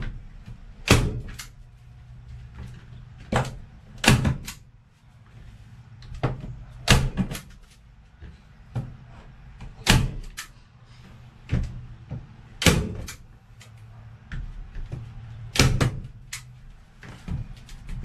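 Heavy-duty staple gun firing staples into a van's partition panel: a series of sharp snaps, a second or more apart and often in quick pairs.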